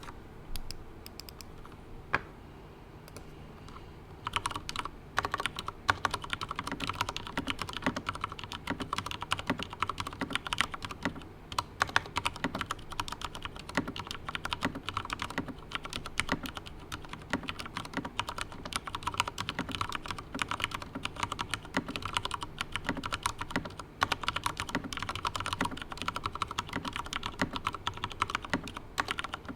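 Drop CTRL mechanical keyboard with Cherry MX Brown switches lubed with Krytox 205g0, being typed on. A few single keystrokes, then fast continuous typing from about four seconds in.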